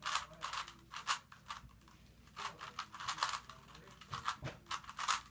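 A Rubik's Cube being twisted by hand: its plastic layers clicking and scraping as they turn, in quick irregular runs of clicks with short pauses between.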